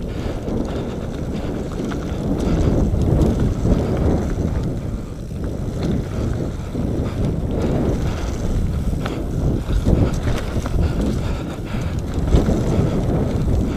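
Wind buffeting the microphone of a camera on a moving mountain bike, over the rumble of knobby tyres rolling down a dirt trail, with occasional knocks and rattles from the bike over bumps.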